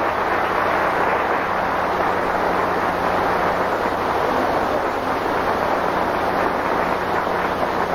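Audience applauding steadily, a dense mass of claps, over a faint electrical hum.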